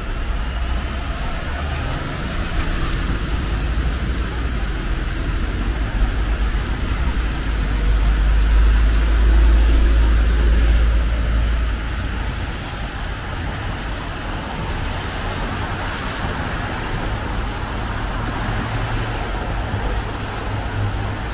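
Road traffic passing on a wet road, with a heavy vehicle going by loudest about halfway through.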